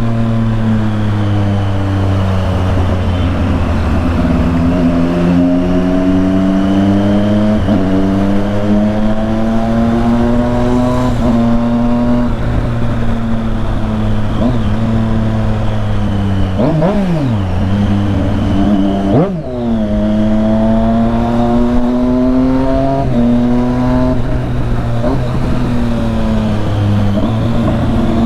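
Triumph Street Triple 675's inline three-cylinder engine through an aftermarket full exhaust, accelerating and shifting up several times, each gear a rising pitch that drops back at the shift. A little past the middle the pitch falls sharply and climbs again twice.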